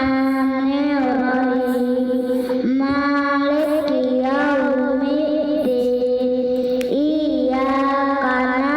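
A young child singing in long held notes, one voice sliding from note to note with brief breaks between phrases.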